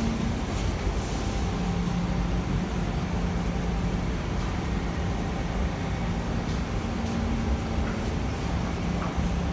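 Siemens C651 metro train standing at an underground platform with its doors open: a steady low hum with a faint tone that shifts in pitch now and then.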